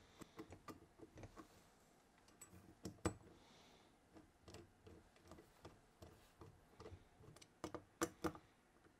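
Faint, scattered small clicks and ticks of a screwdriver and small metal parts on a four-barrel carburetor as the secondary venturis are seated and screwed down. The sharpest click comes about three seconds in, and a quick pair near the end.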